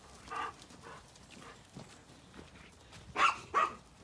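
A flock of Zwartbles sheep walking over soft muddy ground, with quiet hoof steps and rustle, and two brief pitched calls a little after three seconds in.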